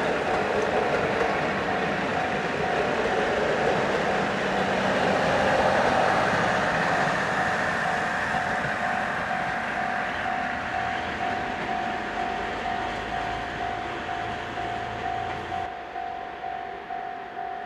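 Japanese railway level-crossing alarm bell ringing in a steady, even beat of about two strokes a second, over the rumble of a train passing through the crossing. The train is loudest about six seconds in and then fades away while the bell keeps ringing.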